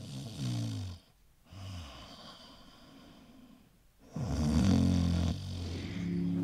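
A man snoring: three long snores, each falling in pitch, the third the loudest. Music comes in near the end.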